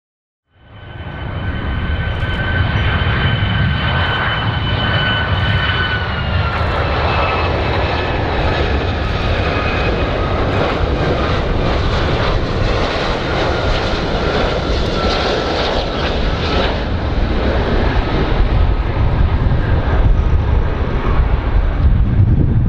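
Boeing 757 airliner's jet engines on landing approach: a steady loud rumble with a high whine that drops slightly in pitch about six seconds in. It fades up quickly about half a second in.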